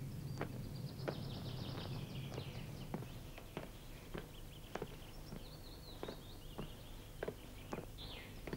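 Footsteps at a walking pace, about two a second, with small birds chirping and trilling throughout.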